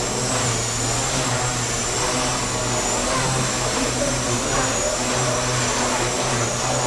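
Electric Gaui Hurricane 200 micro RC helicopter in flight: a thin, high electric-motor whine that wavers slightly in pitch as the throttle changes, over a steady rotor hum and a hall's echoing background noise.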